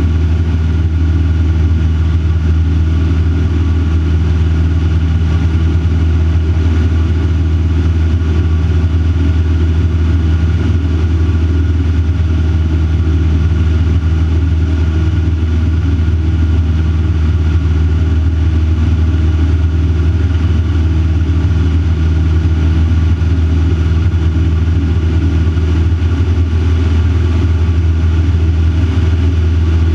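Van's RV-4 light aircraft's piston engine and propeller droning steadily in cruise flight, heard inside the closed cockpit.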